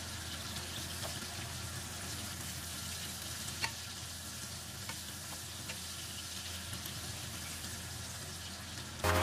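Pork pieces sizzling steadily in hot fat in a non-stick wok, with a few faint taps and scrapes of a bamboo spatula stirring them.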